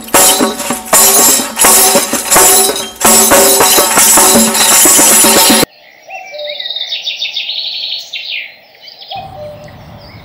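Loud, busy music with frequent percussive beats, cut off abruptly about halfway through. Then birds chirping in quick repeated high notes, with a low rumble coming in near the end.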